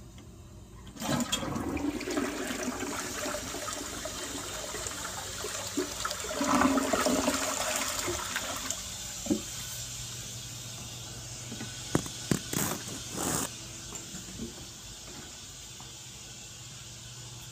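A toilet flushing. A sudden rush of water starts about a second in, stays loud for several seconds, then eases into a quieter steady hiss of water. A few sharp knocks come about twelve seconds in.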